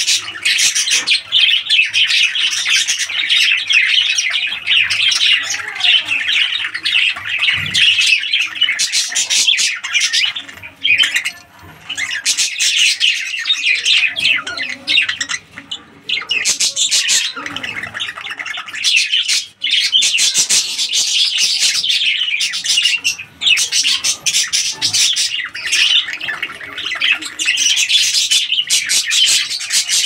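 Budgerigars chattering and squawking: a dense, continuous stream of rapid chirps and clicks that thins out briefly twice, about 11 and 15 seconds in.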